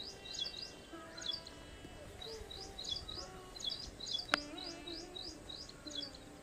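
Small birds chirping over and over in short, high, downward-sliding notes, with a single sharp click about four seconds in.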